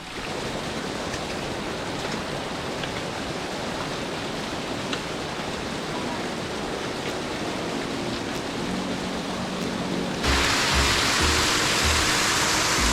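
Steady rush of running glacier meltwater. Soft background music with held notes comes in about halfway, and just after ten seconds the water abruptly becomes louder and brighter.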